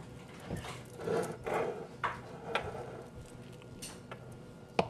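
Silicone spatula scraping and spreading thick, paste-like cashew-style nut cheese around a ceramic bowl: a run of soft, wet scrapes, then a single sharp knock near the end.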